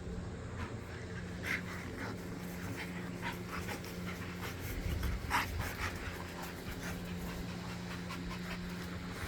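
A dog panting, with a few short sharp sounds scattered through, the loudest about five seconds in, over a steady low hum.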